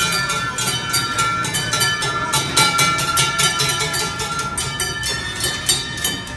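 Music from a kiddie car carousel ride playing, with a quick, steady beat of clicks about five times a second.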